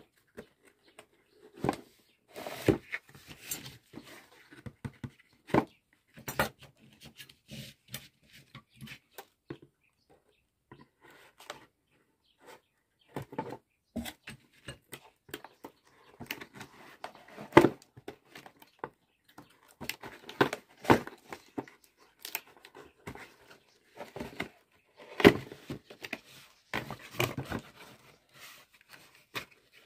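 A cardboard product box being handled and opened by hand: irregular knocks, taps and scrapes, with soft rustling in between.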